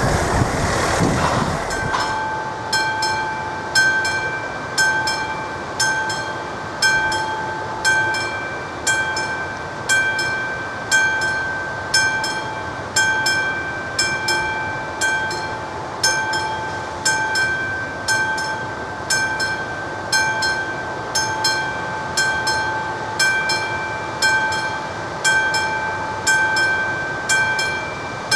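Level crossing's classic mechanical warning bell striking steadily, about once a second, each strike ringing on. It starts about two seconds in, as a loud rushing noise, the kind a train makes passing close, dies away.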